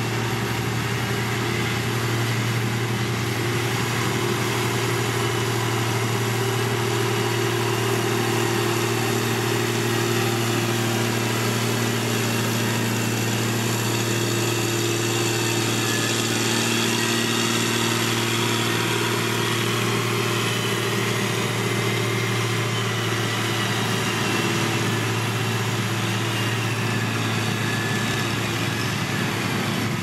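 Dresser 850 motor grader's diesel engine running steadily as the grader pushes clay with its blade.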